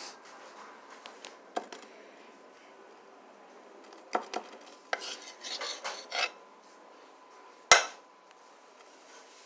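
Metal spoon clinking and scraping against a baking tray while spreading tomato sauce on small pizza bases: scattered clinks, a run of scraping about five to six seconds in, and one sharp clank near eight seconds, the loudest.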